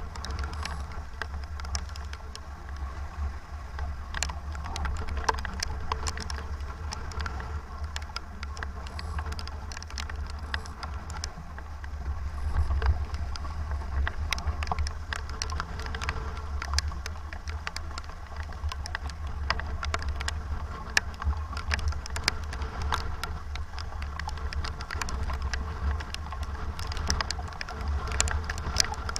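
Strong wind rumbling on the microphone aboard a sailboat racing in about 25 knots of wind, with a constant scatter of sharp ticks from rain striking it.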